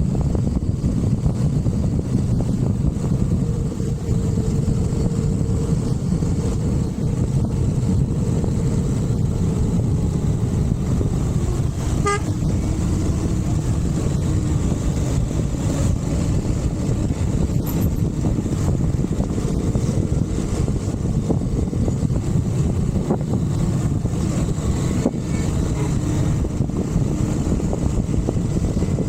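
Husqvarna Vitpilen motorcycle on the move: steady wind rush on the microphone over the running engine, with a brief horn toot about twelve seconds in.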